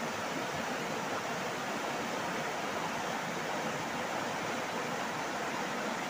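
Steady rush of a fast-flowing river running over rapids.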